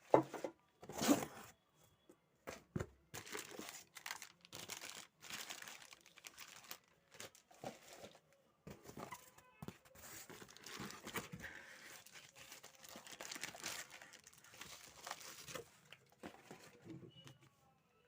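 Packaging being handled and opened: irregular crinkling, rustling and tearing sounds.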